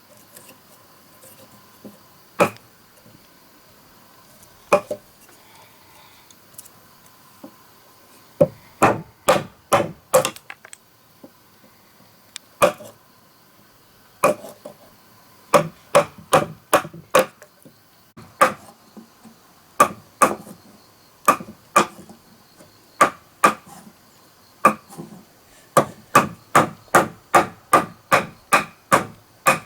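Hand tool striking wood: a few single blows, then from about eight seconds in, quick runs of sharp blows at about two to three a second, consistent with chopping or hewing timber.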